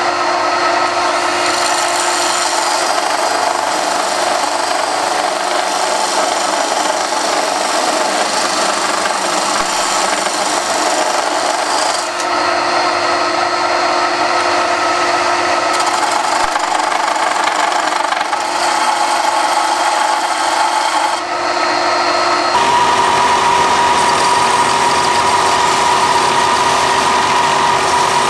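Stationary disc sander running while a small round part, spun in a cordless drill, is pressed against the disc and sanded round, with a steady grinding rub. About three-quarters of the way through, the sound shifts to a louder, steadier hum with a belt sander doing the same work.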